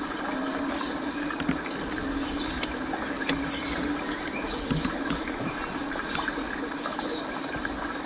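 Cicadas singing in short buzzing bursts that repeat about once a second, over a steady low hum.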